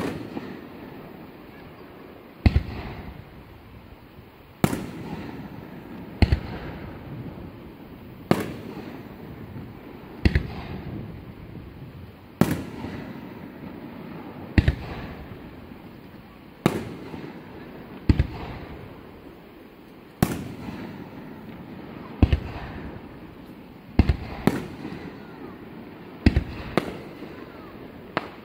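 Aerial firework shells bursting in a display, a sharp boom about every two seconds, each trailing off in a rolling echo. Near the end the bursts come in quicker pairs.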